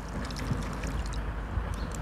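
Steady low rumble of outdoor background noise with a few faint light clicks.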